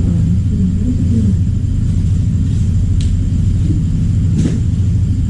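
A steady low rumble, with two short clicks about three and four and a half seconds in.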